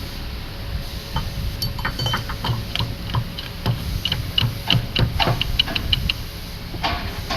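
Sharp metallic clicks and clinks of tools on steel gearbox parts, at first scattered, then a quick run of small ringing ticks in the middle, over a low steady workshop hum.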